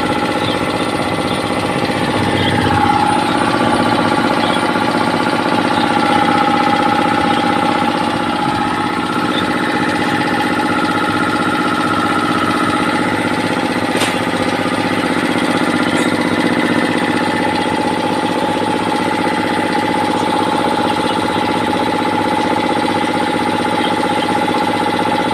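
3 hp electric air compressor with a twin-cylinder pump running steadily, giving a constant mechanical hum. Between about two and nine seconds in, a second engine-like tone drops in pitch and climbs back.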